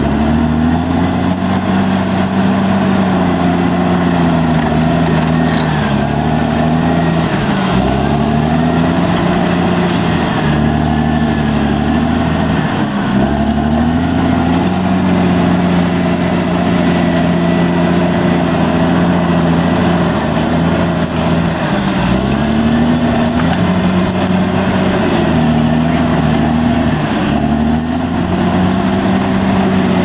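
Caterpillar D6R XL bulldozer's diesel engine working hard as the dozer pushes brush and logs, its pitch sagging and recovering several times as the load comes on and eases. A high whine comes and goes over the engine.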